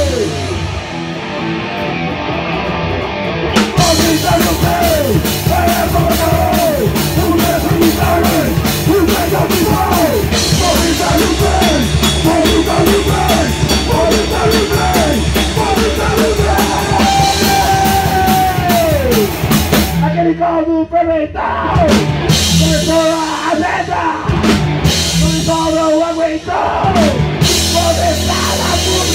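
A heavy rock band playing loud and live in a small rehearsal room: pounding drum kit with cymbals, distorted electric guitar, and a vocalist singing into a microphone. The cymbals drop out for about a second some twenty seconds in before the band comes back in.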